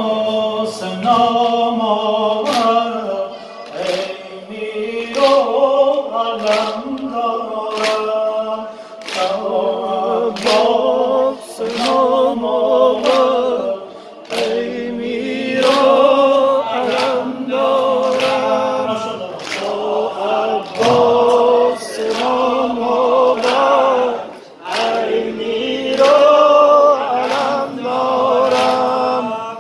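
Muharram lament (noha) sung by a male reciter through a microphone, with a crowd of mourners chanting with him in unison. A steady beat of sharp slaps runs under the singing, typical of the mourners' rhythmic chest-beating (sineh-zani).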